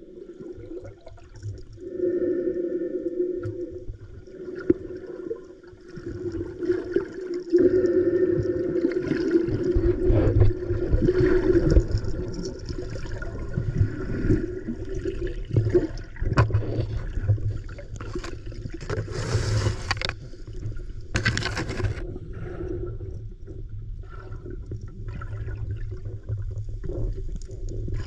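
Underwater water noise heard through a submerged camera in a river: muffled gurgling and low rumbling, with a steady low hum under it. Two short louder rushes of noise come about two-thirds of the way through.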